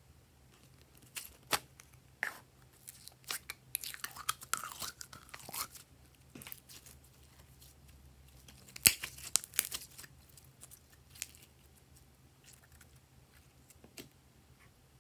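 Glossy glitter slime squeezed out of a plastic bottle and stretched by hand, making sticky clicks and crackles in clusters. The crackling is densest about four seconds in and again about nine seconds in, then thins to scattered clicks.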